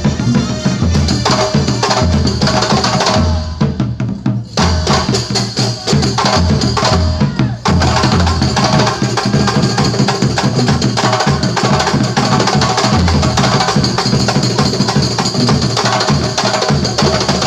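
Kuntulan ensemble of terbang frame drums playing a fast, dense interlocking rhythm over a steady beat of deep drum strokes.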